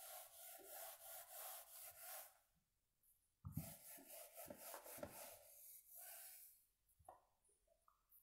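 Hands pressing and rubbing a fabric rag over damp watercolour paper, blotting water off the sheet to dry it. Faint soft rubbing in two stretches with a short pause about three seconds in, and a few soft thuds as the second stretch begins.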